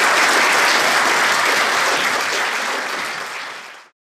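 Audience applauding, a dense steady clapping that eases slightly and then cuts off abruptly near the end.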